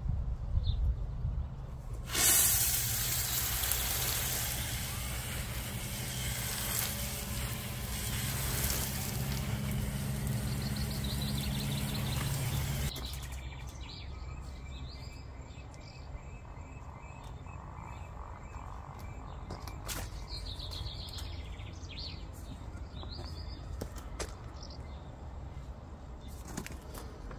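A loud, steady rushing noise with a low hum beneath it runs for about eleven seconds, then cuts off abruptly. Afterwards, birds chirp now and then over a quiet outdoor background.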